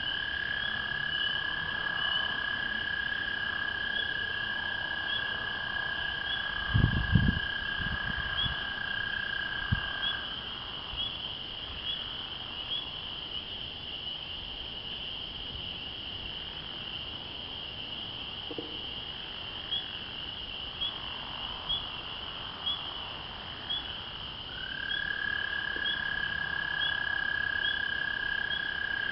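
A chorus of spring peepers, high peeps repeating, with an American toad's long, steady, even trill that stops about ten seconds in and starts again near the end. A few low thumps about seven seconds in.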